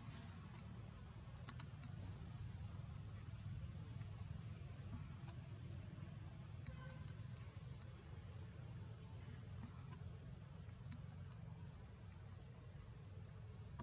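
Steady high-pitched drone of a forest insect chorus, over a low steady rumble.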